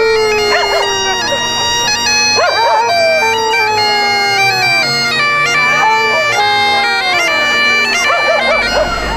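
Highland bagpipes playing a tune: a melody stepping between held notes over a steady drone. A dog barks a few times over the pipes.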